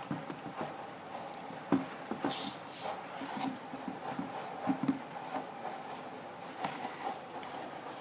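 A plastic bucket feeder fitted with PVC elbow feed ports being handled and tilted by hand: scattered light knocks and scrapes of plastic, the sharpest about a second and a half in, over a steady faint background hum.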